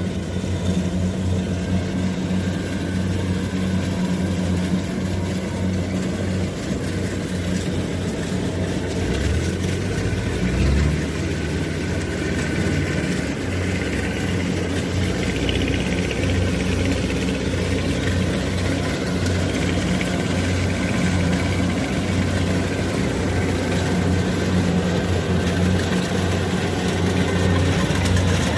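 Diesel engine of a Kubota DC-70 combine harvester running steadily, with a brief deeper rumble about ten seconds in.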